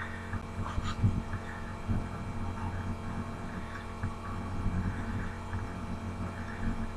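Steady low electrical mains hum with faint room noise and a few small ticks.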